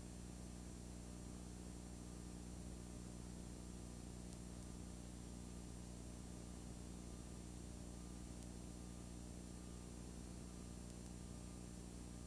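Steady low electrical hum with an even hiss underneath: the noise floor of the tape playback and transfer, with no recorded picture or sound.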